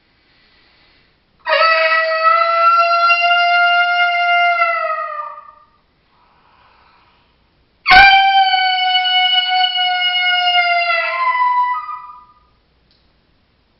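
Two long coyote howls blown on an MFK mouth diaphragm howler call, hands cupped around the mouth. Each is a loud held note of about four seconds that drops in pitch as it tails off. The second starts with a sharp pop of air.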